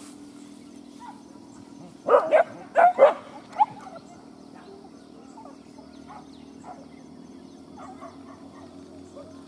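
Hunting dog barking: a quick run of about five sharp barks some two seconds in, then fainter calls.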